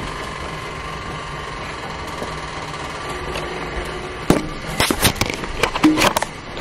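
Wall-mounted heater running loudly with a steady mechanical hum and whir, a sound likened to an Indian railway station. About four seconds in, a run of irregular knocks and clatters comes in over it.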